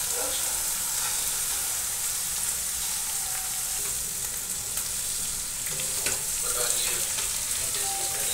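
Cubed brinjal (eggplant) sizzling as it fries in a non-stick kadhai, stirred with a spatula. A few spatula scrapes and knocks against the pan come around six seconds in.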